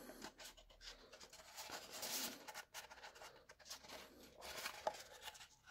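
Faint scraping, rubbing and small clicks of a small servo being worked into a cutout in a 3D-printed plastic fuselage, its wires brushing against the part, with a sharper click near the end.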